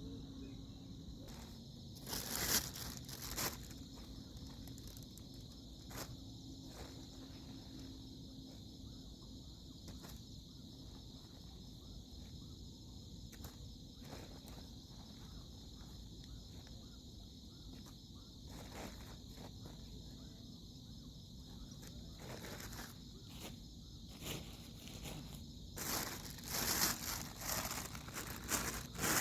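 Outdoor ambience with a steady high insect drone and low background noise, broken by scattered rustles and clicks; the rustling and crackling become louder and more frequent near the end.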